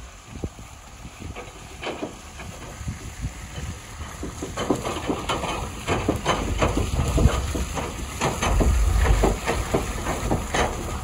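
Truck engine running as the truck is backed into position, with many short crackles throughout and a low rumble that grows louder in the second half.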